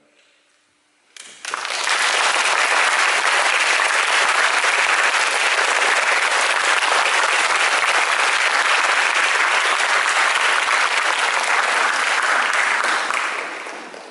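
Audience applauding: after about a second of near silence the clapping starts suddenly, holds steady, and fades away near the end.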